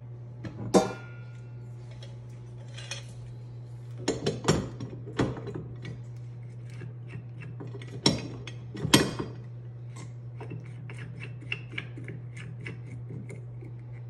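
Stainless-steel meat grinder head and parts being handled and fitted by hand: scattered metal clicks and clinks with a few louder clanks, over a steady low hum.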